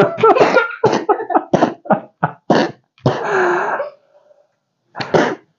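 Laughter in a run of short, breathy bursts, with a longer breathy burst midway and one more near the end.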